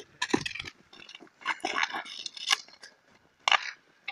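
Road hockey sticks clacking and scraping on asphalt and hitting a plastic ball: a string of sharp knocks, the loudest about two and a half and three and a half seconds in.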